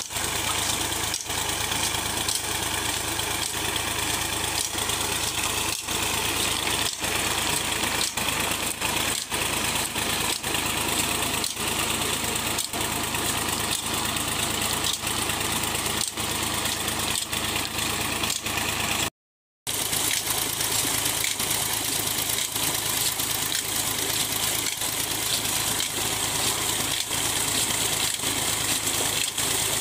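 Fiat 480 tractor's diesel engine running steadily under load, driving two tubewell pumps through a long belt and shaft, with water gushing out of a 7-inch delivery pipe into a concrete tank. The sound cuts out for about half a second about two-thirds of the way through.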